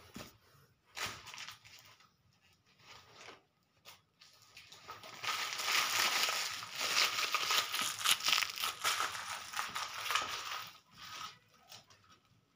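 Packaging being crinkled and rustled by hand. A few scattered rustles at first, then dense, loud crinkling from about four seconds in until nearly the end.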